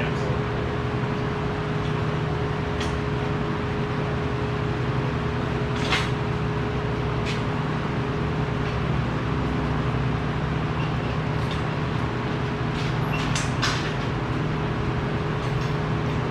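Steady machine hum and noise of a welding shop floor, with a few short metallic knocks.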